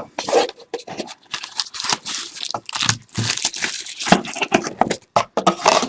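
Plastic wrapping crinkling and tearing as a box of trading cards is opened, with quick irregular crackles and rustles.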